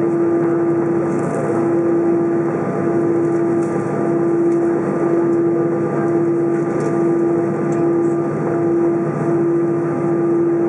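Steady cabin noise inside an Airbus A320 on the ground: an even hum with one strong, steady mid-pitched tone running through it and fainter higher tones above.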